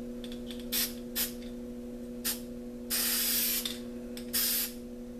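Aerosol spray can of red paint sprayed in separate bursts of hiss: a few short puffs early on, a longer spray of nearly a second just past the middle, then another short one. A steady low hum runs underneath.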